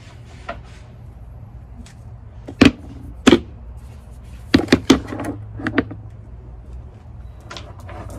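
Rocks clacking against each other as they are set in by hand around a small fountain pump: scattered sharp knocks, two loud ones about two and a half and three seconds in, then a quick run of several around four and a half to five seconds in, over a low steady hum.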